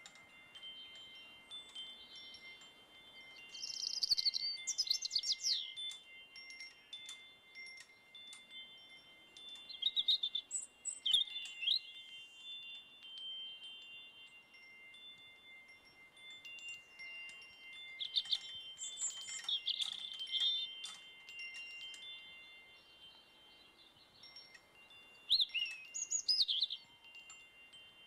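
Wind chimes ringing, struck again and again, their tones lingering and overlapping. Bursts of quick bird chirps come four times.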